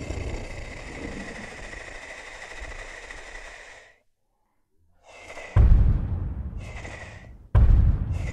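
Tyrannosaurus rex roar sound effects: a long, deep roar fades out, and after a second of silence two more sudden roars follow about two seconds apart, each starting loud and fading.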